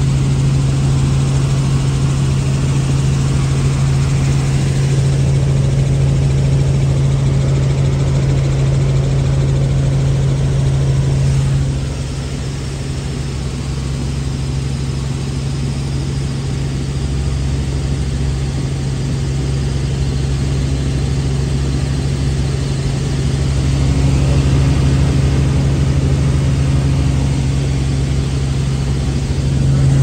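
Helicopter in flight heard from inside the cabin: a loud, steady drone with a strong low hum. The hum drops away and the level dips a little about twelve seconds in, then both come back up near the end.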